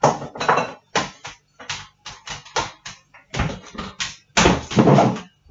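Kitchen clatter as a wall cupboard is opened and things in it are handled: a quick, irregular run of sharp knocks and clanks, with a longer rattle near the end.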